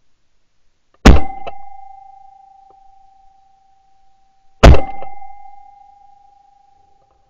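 Two shotgun shots about three and a half seconds apart, each followed by a steady high ringing tone that fades over a few seconds.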